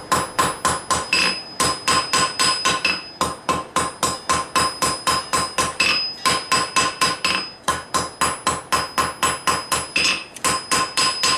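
Hand hammer striking hot steel on an anvil, a quick steady run of blows about four to five a second with brief pauses, each blow ringing: a knife blade being forged out of a forge-welded san mai billet.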